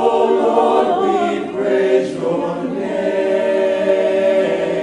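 A choir singing a cappella in sustained chords, moving to a new chord about one and a half seconds in, then holding a long final chord.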